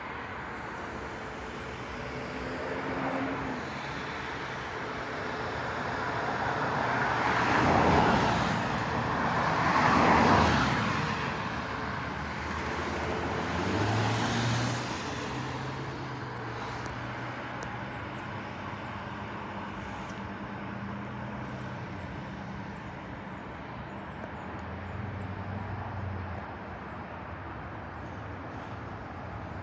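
Road traffic: several vehicles pass one after another, each swelling up and fading away, the loudest two around 8 and 10 seconds in. Faint high bird chirps repeat through the second half.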